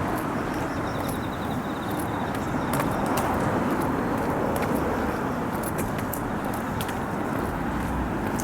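Road traffic: a steady rumble of passing cars.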